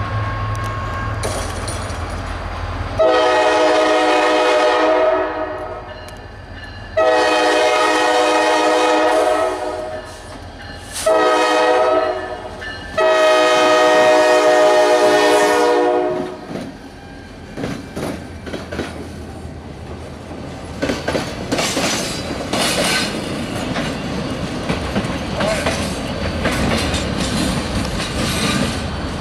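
Diesel locomotive air horn sounding the grade-crossing signal, long, long, short, long, as the train approaches a road crossing. Then the locomotives and freight cars roll past, wheels clicking over the rail joints.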